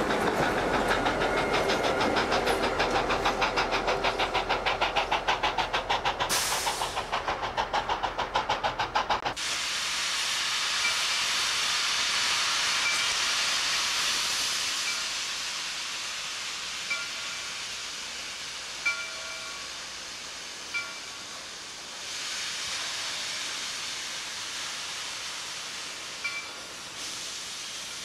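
The steel wheels of a steam excursion train's stainless-steel passenger cars roll past close by, clicking rhythmically over the rail joints. About nine seconds in the sound cuts to a steady hiss, with a few brief faint chirps.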